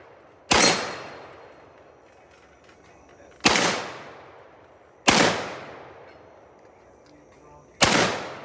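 Four single rifle shots from an IWI Galil Ace chambered in 7.62×39, fired one at a time a few seconds apart, each with a long echoing tail.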